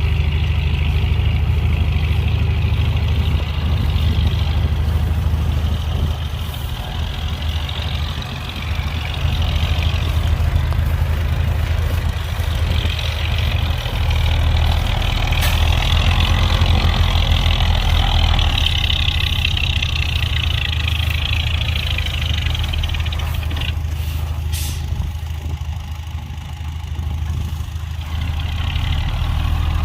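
Heavy diesel earthmoving machinery, a bulldozer and dump trucks, running steadily with a deep engine rumble. A higher rushing noise swells through the middle, and there are a few short sharp knocks.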